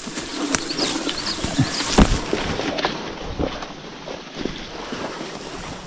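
Footsteps through brush: leaves rustling and twigs crackling irregularly, with a sharp snap about two seconds in.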